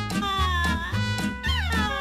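Background music with a steady beat, with a pet's drawn-out, gliding cries over it: one near the start and another about one and a half seconds in.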